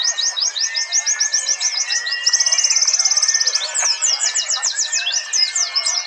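Several white-eyes (pleci, Zosterops) singing at once: a dense, overlapping chatter of fast, high, downward-sweeping notes. A little over two seconds in, one bird breaks into a rapid, even trill that lasts about a second and is the loudest part.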